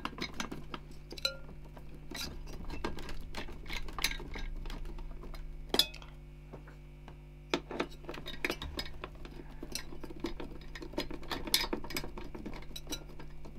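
Small metal screws of a CPU cooler's mounting bracket being turned and tightened with a screwdriver and by hand: irregular light clicks, taps and scrapes of the tool and metal parts.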